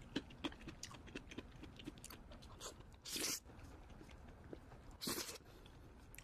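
Close-up eating of creamy carbonara: wet chewing with many small mouth clicks, and two short, louder slurps about three and five seconds in.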